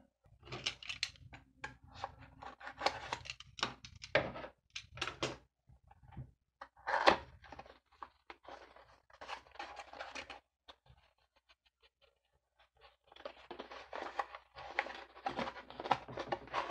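Hands opening and handling a small cardboard SSD box: quick clicks, taps and scrapes of the card flaps and insert being worked loose. It goes quiet for a moment midway, then a busier stretch of rustling and scraping follows near the end.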